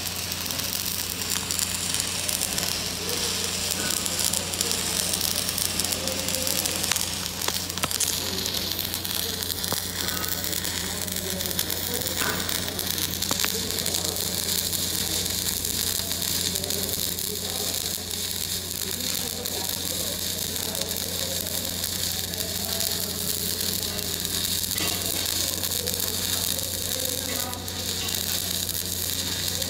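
Stick (shielded metal arc) welding: the arc gives a steady crackling sizzle with a constant low hum underneath.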